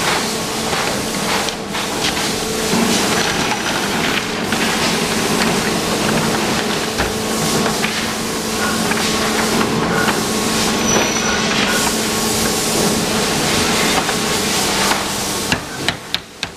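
Steady factory machinery din with a constant hum, mixed with the light clatter of hard plastic parts being handled. Near the end the din cuts off and a quick regular ticking, about four a second, is left.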